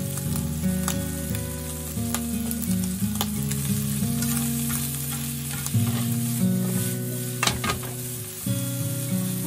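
Onions, bacon and shimeji mushrooms sizzling in butter in a nonstick frying pan as they are stir-fried, with scattered taps and scrapes of a slotted spatula against the pan, a quick cluster of them about seven and a half seconds in. Background music plays underneath.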